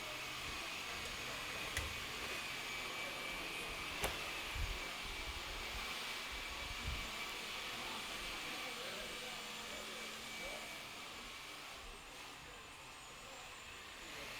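Electric jigsaws running at a distance while cutting, a steady whirring with a faint high whine, and a couple of sharp knocks.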